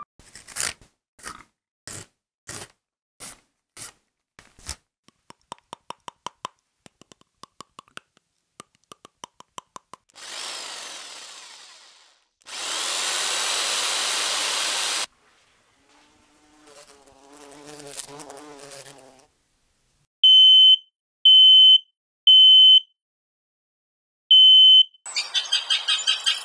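A sequence of separate short test sounds: evenly spaced clicks at about two a second, then faster clicks, a burst of hiss that fades, a steady rushing noise, a wavering pitched hum, four high electronic beeps, and a dense rapid rattle near the end.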